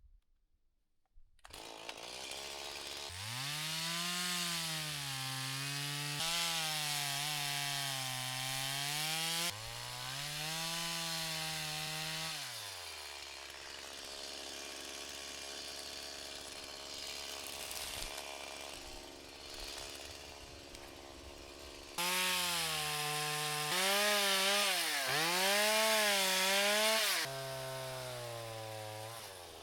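Chainsaw cutting poplar, its engine pitch rising and falling over and over as it revs and labours in the cut. In the middle it runs steadier and quieter for several seconds before cutting hard again.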